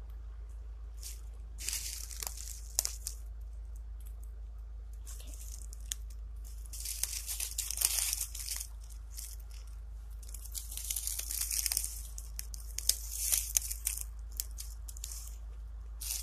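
Dry leaves and brush crackling and rustling close to the microphone in several bursts of a second or two, as someone pushes through the undergrowth.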